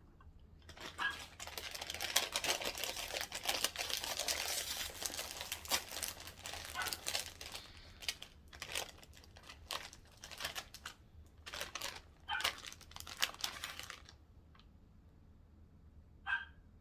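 Paper or plastic food wrapper crinkling and rustling as it is handled. The crinkling is dense for the first several seconds, then comes in short separate bursts, and stops about two seconds before the end.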